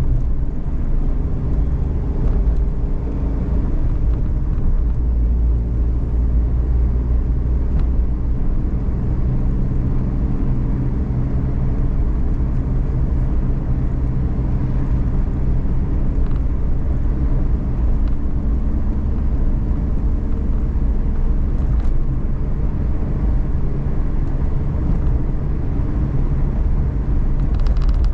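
Inside the cabin of a Suzuki Every (DA17V) kei van on the move: a steady low rumble of road and engine noise, with the small three-cylinder engine humming underneath.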